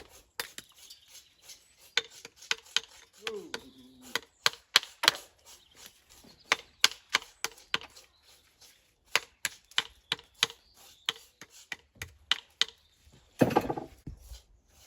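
Irregular series of sharp taps and knocks, a hard tool striking stone, a few times a second. A louder, longer rushing scrape comes near the end.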